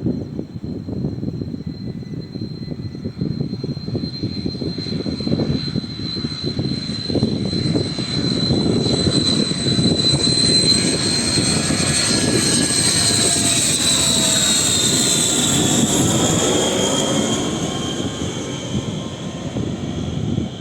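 Airliner passing close on its landing approach: a low engine rumble under a high whine that swells to a peak about halfway through, then drops in pitch and fades as it goes by.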